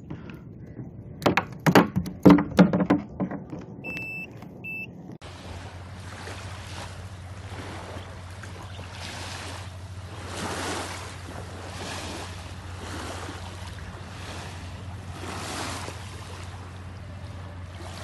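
Sharp knocks and slaps on a plastic kayak deck, with two short electronic beeps near the end of them. Then, about five seconds in, a steady wash of small waves lapping at the shore, swelling and easing about once a second over a low hum.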